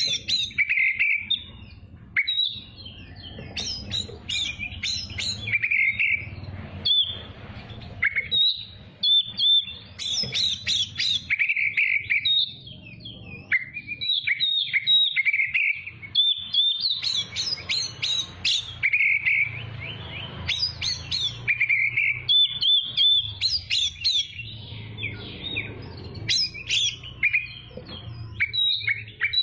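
Oriental magpie-robin (kacer) singing a long, continuous, varied song of rapid whistles and chirps with only brief pauses, over a faint low hum.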